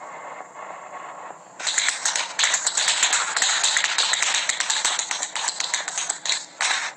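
Rapid tap-dance steps clicking on a hard floor, many taps a second, starting about a second and a half in over a soft hiss and stopping just before the end.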